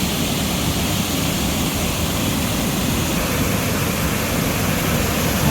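River waterfall rushing: a steady, even wash of falling water.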